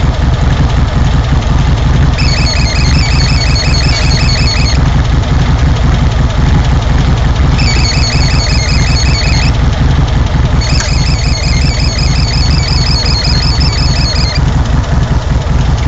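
Air-cooled Volkswagen flat-four engine idling steadily. A high-pitched chirping in quick, even pulses comes and goes over it in three stretches.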